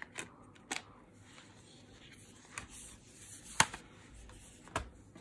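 Handling of a Blu-ray box set: a disc pried off its tray and cardboard booklets shifted on a wooden table, giving soft rustling and a few sharp clicks, the sharpest about three and a half seconds in.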